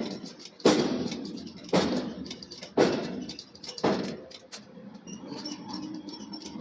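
Heavy forging hammer blows on a steel billet, about one a second, four strikes each ringing out briefly, then a pause of lighter ticking near the end.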